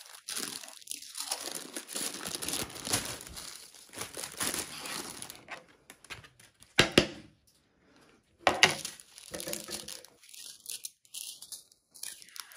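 Thin plastic crinkling and tearing as a small bag of diamond-painting drills is handled and opened. Two sharp knocks, the loudest sounds, come about a second and a half apart around the middle.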